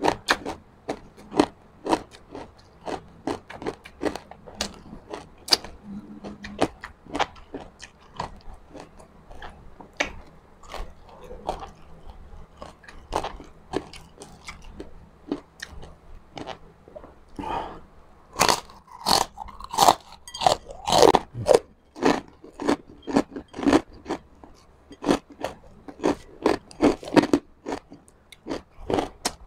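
Close-up crunching and chewing of crispy fried pork chicharon, with steady bites and chews about two a second. The crunches get louder and denser after the middle.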